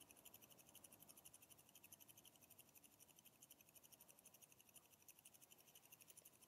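Near silence: room tone, with a faint, fast, evenly repeating high-pitched pulsing.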